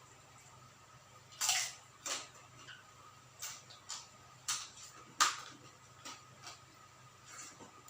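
Close-up chewing of crispy deep-fried quail: a string of sharp, irregular crunches, the loudest about a second and a half in and again about five seconds in.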